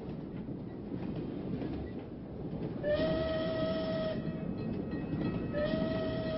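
Train running with a steady rumble. A train whistle sounds twice, first about three seconds in and again near the end, each blast a single held tone of more than a second.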